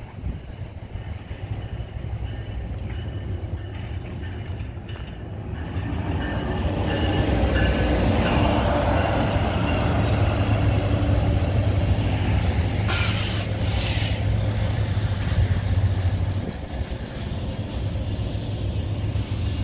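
NJ Transit train hauled by a Bombardier ALP-45DP dual-mode locomotive passing close by. A low engine and wheel rumble builds about six seconds in and stays loud as the coaches roll past. Two short hisses of air come about two-thirds of the way through.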